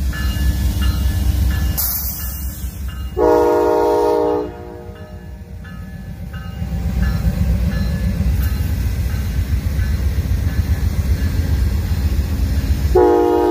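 Amtrak GE P42DC diesel locomotives rumbling as they pull slowly past, with the bell ringing faintly at an even pace. The horn sounds once for about a second and a half, about three seconds in, and again near the end.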